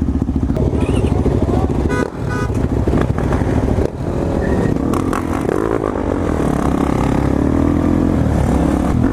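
Dirt bike engine running under throttle while riding, its pitch shifting as the throttle is worked, with brief dips about two and four seconds in.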